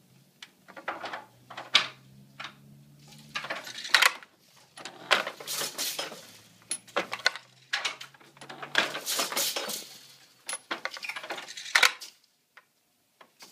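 Floor loom being worked: irregular wooden clacks and knocks with metallic clatter from the shafts and heddles, a few sharp clacks standing out among longer rattling stretches.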